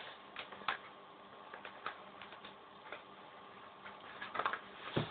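Sheet of paper being folded and creased by hand: scattered light crinkles and taps, a few near the start and a cluster near the end, over a faint steady hum.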